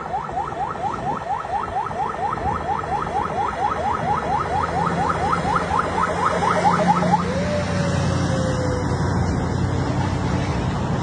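A Mercedes-Benz Actros heavy-haul truck's diesel engine grows louder as it approaches and passes hauling an oversized load, followed by the rushing of its long multi-axle trailer's tyres. Over the engine a rapid chirping warning siren sounds, about five rising chirps a second, which stops about seven seconds in and is followed by a single falling tone.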